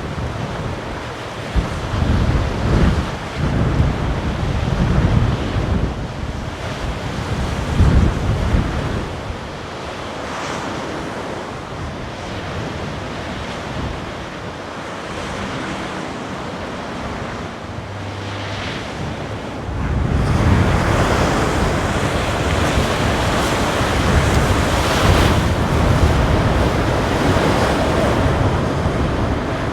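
Ocean waves and surf with wind buffeting the microphone. Heavy low wind gusts hit in the first several seconds, it eases off in the middle, and from about twenty seconds in the wave and wind noise grows louder and brighter.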